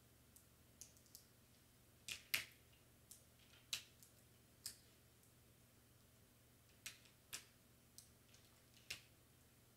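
Faint, scattered crackles and ticks of clear plastic transfer tape being slowly peeled back from vinyl lettering: about a dozen small, irregular clicks over otherwise near silence.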